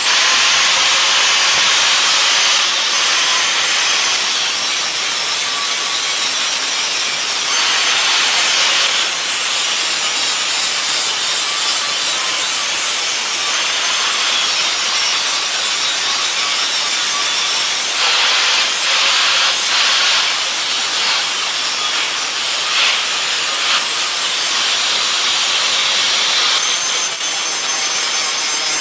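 Knife blade being ground: a steady abrasive rasp that brightens and eases every few seconds as the pressure on the steel shifts.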